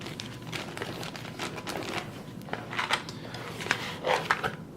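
Small plastic bags of electronic parts crinkling and rustling as they are handled, with scattered light clicks and taps.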